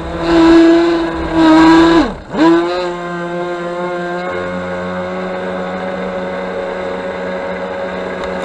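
Electric motor of a small radio-controlled speedboat whining, heard from a camera on the boat, surging loudly over the first two seconds. About two seconds in, the pitch drops sharply and comes back lower; then the motor holds a steady whine.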